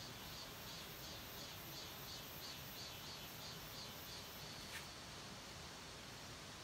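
Faint insect song: a run of high, evenly pulsed chirps, about three to four a second, ending in a short steady buzz just after four seconds in, over a light steady hiss. A single sharp click sounds near five seconds in.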